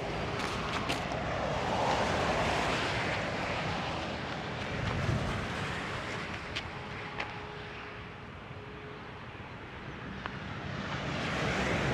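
Motorway traffic noise from the A8 Autobahn: a steady rush of tyres and engines that swells and fades as vehicles pass.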